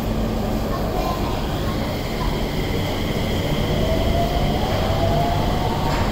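Mitsubishi Crystal Mover rubber-tyred LRT train pulling out of a station: a steady rumble of its running gear, with a motor whine rising in pitch from about halfway through as it picks up speed.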